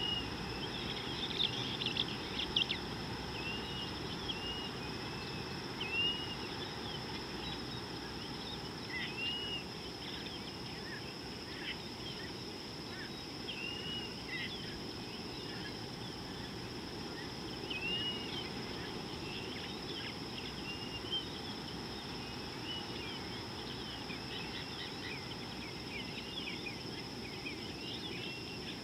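Outdoor bush ambience: wild birds giving scattered short chirps, with one arched call note repeated every few seconds, over a steady high insect drone and a low background rumble.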